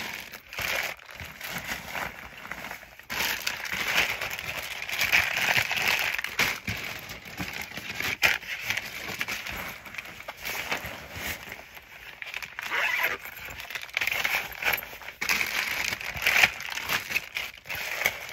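Plastic wrappers crinkling and rustling, with the fabric of a bag shuffling, as plastic-wrapped supplies are handled and packed into the bag; the rustling comes and goes irregularly.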